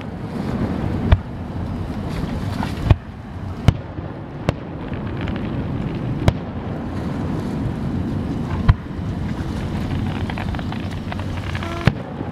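Fireworks shells bursting overhead: about seven sharp bangs at uneven intervals, the loudest about a second in, near three seconds and near nine seconds, over a steady background rush of outdoor noise.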